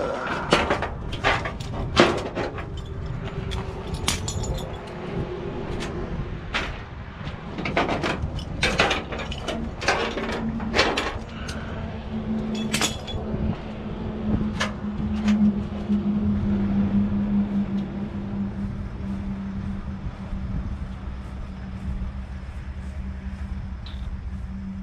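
Clanks and knocks of metal gear and climbing on a steel car-hauler trailer, with perforated steel decks, ladder and straps. The knocks come thick in the first half, and a steady low hum sets in about halfway and runs on underneath.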